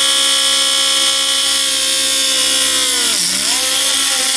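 Small handheld rotary tool with a fine bit, running with a steady high whine while drilling a hole through a polymer clay bead. About three seconds in, its pitch sags briefly and then comes back up.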